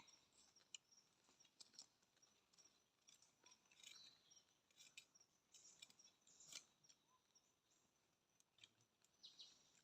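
Near silence, with faint scattered clicks and brief high-pitched chirps.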